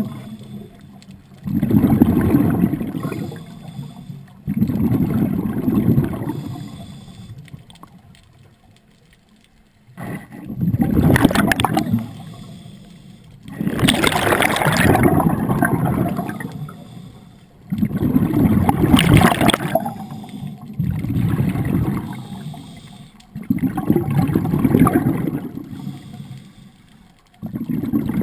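Scuba diving breathing heard underwater close to the diver: a burst of bubbling from each exhale through the regulator, repeating every few seconds. A few of the breaths also carry a sharp hiss.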